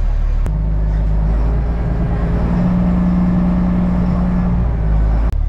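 Ferry boat's engine running with a steady low drone. The sound changes abruptly about half a second in and again near the end.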